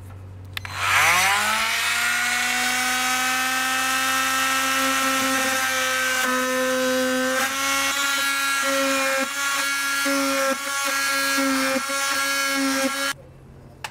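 Milwaukee M12 cordless oscillating multi-tool spinning up with a rising pitch just under a second in, then running steadily as its blade cuts a square hole in a compartment door panel, the tone wavering a little as the blade loads. It stops abruptly near the end.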